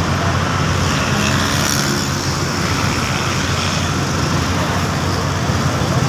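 Asphalt paver's diesel engine running at a steady hum, with road traffic passing alongside.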